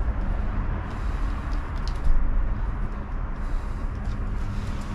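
Steady low rumble with a hiss over it, like a running vehicle, and a few faint scratches of a pen writing on paper.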